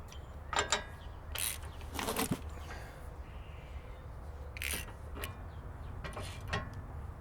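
Short metal clinks and scrapes, about five in all, as the new spindle nut is fitted onto the truck's front spindle by hand.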